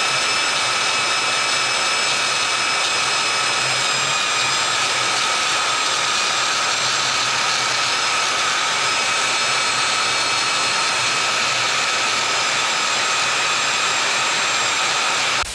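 A power tool motor running steadily at full speed, a continuous high whine over a hiss, with no change in pitch. It cuts off abruptly at the very end.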